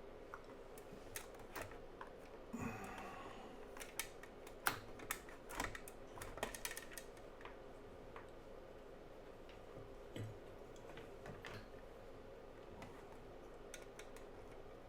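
Scattered clicks and light knocks of equipment being handled on a workbench, busiest in the middle, with a dull thump about ten seconds in, over a faint steady hum.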